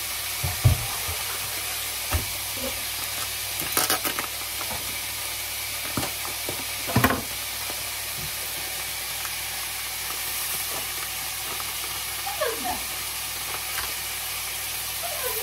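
Pieces of meat sizzling steadily in a frying pan, with a few sharp knocks of kitchen utensils and, near the end, the crinkling of a plastic bag of rice being opened.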